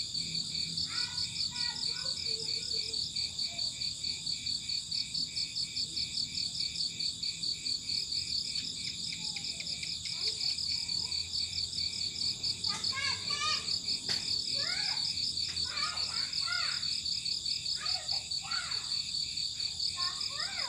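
Crickets chirping in a steady, fast-pulsing chorus. A few short, warbling chirp calls break in over it from about halfway through.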